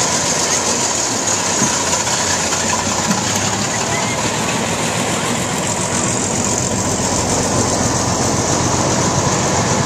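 Vintage fire engines driving slowly past, engines running steadily, over a constant background of crowd noise.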